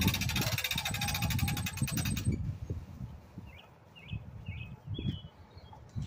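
A motor runs steadily with a rapid even pulse and shuts off suddenly about two seconds in. A bird then chirps four times, with a few light knocks.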